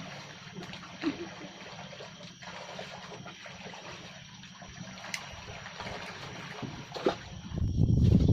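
Faint trickling and lapping of water, with a few small clicks. Near the end a loud low rumble sets in.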